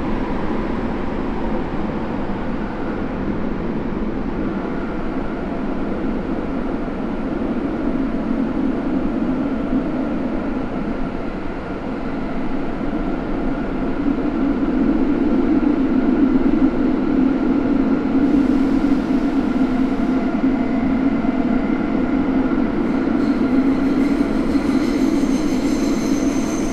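Running sound of a Saitama Railway 2000 series subway train with Mitsubishi IGBT-VVVF drive, heard from inside the car in a tunnel: a steady rumble of wheels and motors with a faint even whine. It grows a little louder about halfway through, and high steady tones join in near the end.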